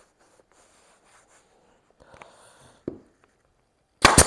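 Faint rubbing as a seat cover is stretched and handled, then near the end a single loud, sharp crack of a staple gun driving a staple into the seat base.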